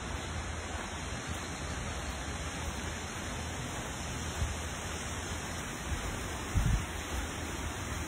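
Steady rush of water in the background, a continuous even hiss. A few low thumps break through it, the loudest about two-thirds of the way in.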